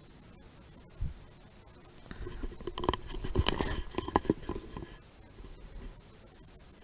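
A dull thump about a second in, then about three seconds of scratching and clicking, loudest in the middle.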